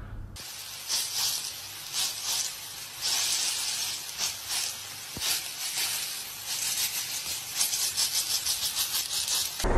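Hot oil sizzling and crackling in a frying pan as cut hot dogs and pepperoni slices fry. It starts abruptly, and the crackling pops come faster near the end.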